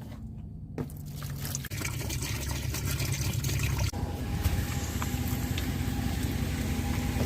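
Water being poured from a container into a dog's bowl: a steady splashing trickle that starts about two seconds in and goes on, over a low steady hum.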